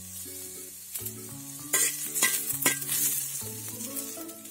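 Onion and garlic sizzling in coconut oil on an iron tava, with a metal spoon scraping and stirring against the pan a few times through the middle.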